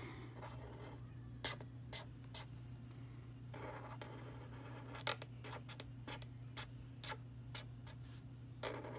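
Felt-tip marker scratching and tapping on paper in short, irregular strokes while colouring in a drawing, over a steady low hum.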